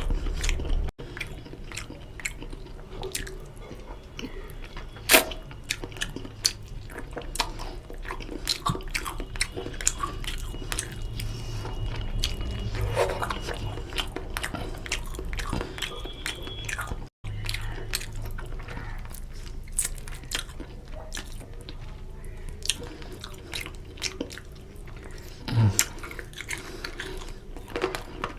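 Close-miked chewing and biting of chicken curry with rice, full of wet mouth clicks and smacks. A single sharp click about five seconds in is the loudest sound.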